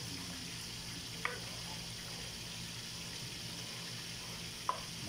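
Tomato and egg sauce simmering in a granite-coated pot, a steady hiss of bubbling liquid over a low hum, as a spatula stirs it. The spatula knocks against the pot twice, about a second in and near the end.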